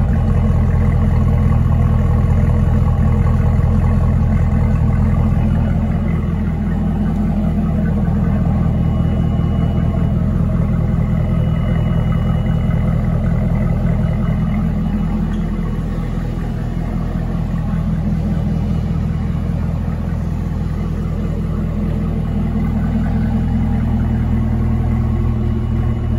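The supercharged 6.2-litre LT4 V8 of a 2019 Chevrolet Camaro ZL1 idling, heard at its quad exhaust tips: a steady low note with no revving.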